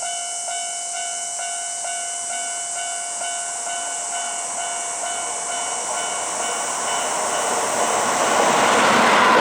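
Japanese railway level-crossing warning bell ringing in a steady repeating pattern, a little over two strikes a second. Over the last few seconds an approaching train's running noise swells up and drowns out the bell.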